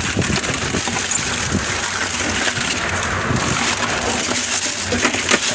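Ice cubes being gathered up, clattering and crunching against one another in a dense run of small clicks.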